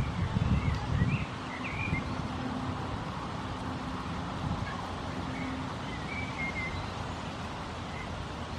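Outdoor ambience: a steady low motor hum in the background with a few short bird chirps, about a second in and again around six seconds in. Low rumbling thumps are loudest in the first second or so.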